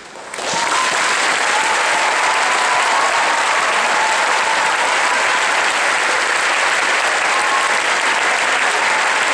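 Large audience applauding at the end of an orchestral piece, breaking out about half a second in and then holding steady and loud.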